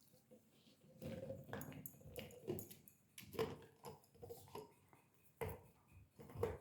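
Husky puppy chewing and biting on a squeaky treat-dispensing ball. The ball squeaks in short, irregular bursts with the bites.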